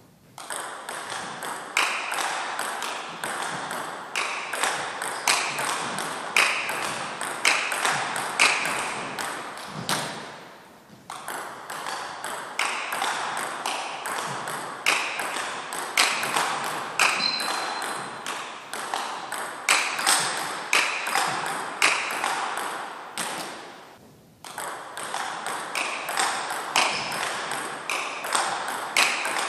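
Table tennis ball hit back and forth in a backhand topspin rally, the ball cracking off the bats, one a Donic Acuda S3 rubber on a Butterfly Primorac Carbon blade, and bouncing on the table in a quick, even rhythm. The rally stops twice, about ten and twenty-four seconds in, and starts again each time.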